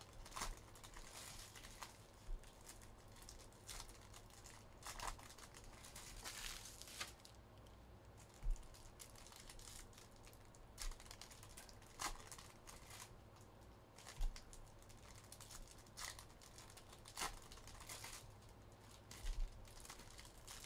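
2022-23 Upper Deck Synergy hockey card pack wrappers crinkling and tearing as packs are opened, with scattered light clicks and swishes of cards and packaging being handled.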